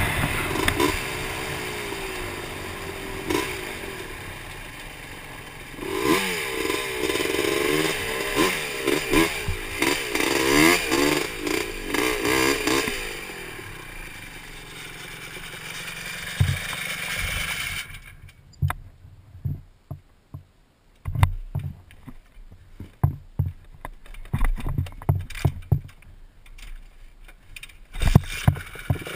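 Honda TRX250R ATV's 250cc two-stroke single-cylinder engine revving up and down while riding. About eighteen seconds in, the engine note drops away suddenly, leaving scattered knocks and clicks as the quad comes to a stop.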